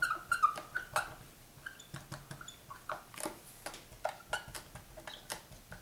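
Felt-tip marker writing on paper: a run of short squeaks and scratchy taps, several a second, as letters are drawn.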